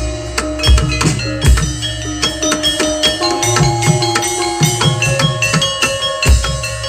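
Javanese gamelan-style music: metal keyed instruments ring out sustained, overlapping notes over hand-drum strokes and occasional deep, heavy drum beats.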